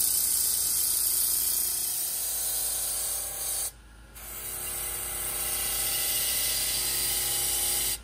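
Bench polishing machine's abrasive wheel spinning against an aluminium ceiling-fan cover, giving a steady high hiss over the motor's low hum. The sound breaks off briefly just before halfway, then carries on.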